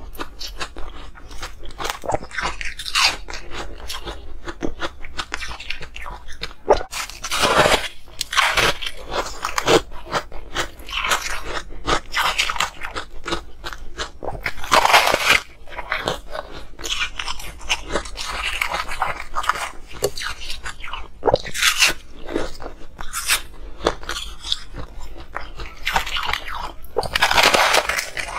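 Close-miked biting and chewing of blue-coloured ice: irregular sharp crunches as pieces snap off and are ground between the teeth.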